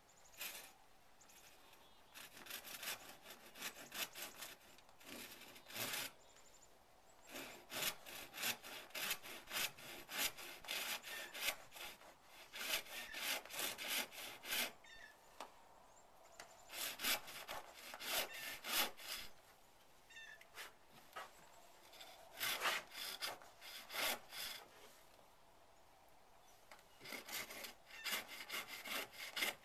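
Handsaw cutting through a piece of green trembling aspen, with rapid back-and-forth strokes in several runs separated by short pauses.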